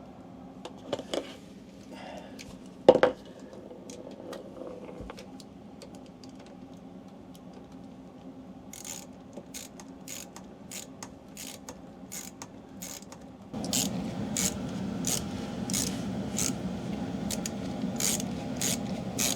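A few knocks of metal parts, the loudest about three seconds in, then a ratchet clicking at about two to three clicks a second while the RV slide-out's chain and cable mechanism is turned by hand. From about fourteen seconds a louder grinding rub of the turning mechanism joins the clicks.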